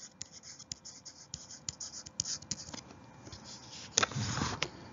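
Faint, scattered clicks and ticks close to the microphone, with a louder rustle about four seconds in.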